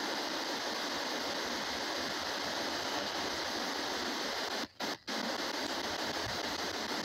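Radio static from an S-Box ghost scanner sweeping through radio channels: a steady hiss that cuts out twice, very briefly, a little under five seconds in.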